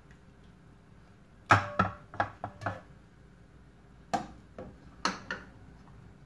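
Cooking utensils clattering: a metal ladle and a wooden spoon knocking against a cooking pot and tray as boiled chicken pieces are lifted out. A quick run of about five knocks comes about a second and a half in, and three more follow spaced out later.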